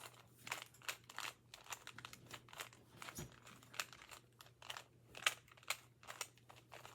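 A plastic 2x2 puzzle cube being turned rapidly by hand: a fast, irregular run of clicks and clacks, several a second, as its layers snap round.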